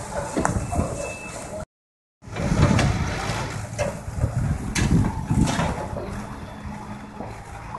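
Demolition excavator running while it breaks apart a cinder-block wall: heavy rumbling and repeated crashes and clatter of falling blocks and debris, loudest after the sound drops out briefly a couple of seconds in.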